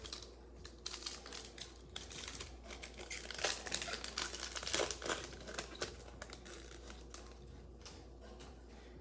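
Plastic trading-card pack wrapper being crinkled and torn open by hand, with irregular crackling that is loudest about halfway through and dies down near the end.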